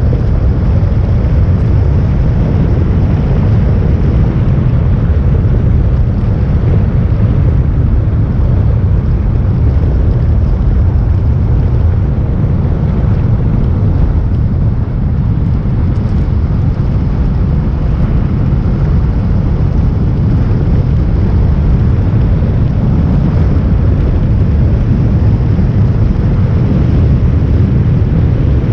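Steady, loud low rumble of a vehicle on the move, heard from on board: road and engine noise mixed with wind buffeting on the microphone.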